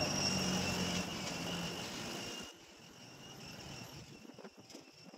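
A steady noisy din with a high, even whine over it. It drops off suddenly about halfway through, leaving a quieter background with scattered clicks.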